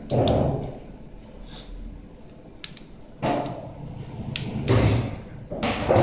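Hand pliers crimping a cable lug onto a wire, handled close to the microphone: several dull thumps, the loudest right at the start, with a few sharp clicks between them.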